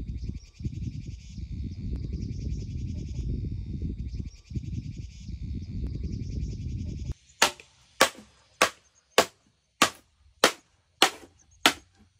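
A steady low rumble under a high, pulsing insect-like chirr cuts off after about seven seconds. Then come about nine sharp, evenly spaced strikes, about one every 0.6 seconds: a hand tool striking wood.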